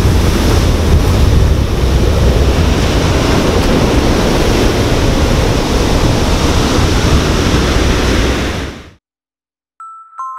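Ocean surf breaking and washing up the shore as a steady rush. It fades out about nine seconds in, and music with struck, ringing notes begins right at the end.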